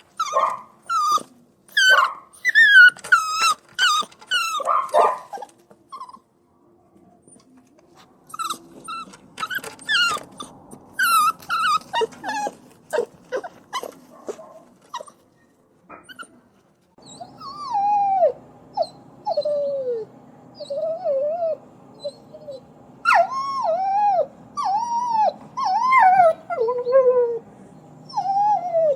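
Puppies crying and whining. Rapid high-pitched yelping cries come first, then more after a short pause; about halfway through, drawn-out whimpers that fall in pitch take over, over a steady low hum.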